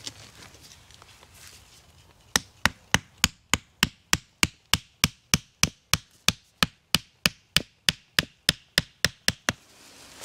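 Wooden tent peg being hammered into the ground: a long run of about 25 sharp, evenly spaced knocks, roughly three a second, starting about two seconds in and stopping near the end.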